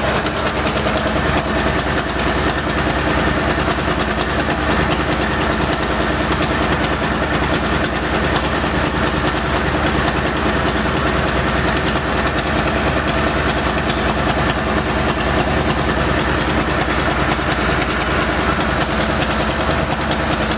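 Worn Chevy small-block V8 in a Farmall tractor idling steadily; its builder jokingly calls it a seven-cylinder.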